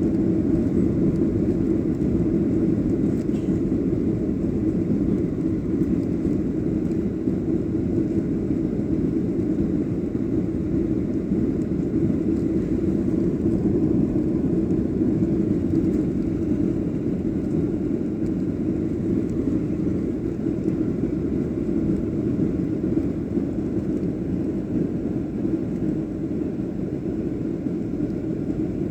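Boeing 737-800's CFM56 jet engines and airflow, a steady low rumble after takeoff that eases slightly over the half-minute.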